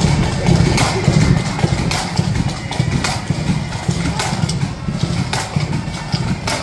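Marching band's bass drum beating a steady march rhythm, about two beats a second, with sharper higher drum or cymbal hits roughly once a second.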